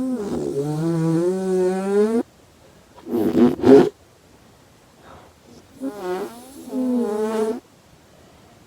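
Exaggerated snoring-like vocal sounds cut together in abrupt chunks. A long voiced tone dips and then slowly rises in pitch, a harsh snort comes about three seconds in, and another long voiced tone rises in pitch near the end. Each one cuts off suddenly.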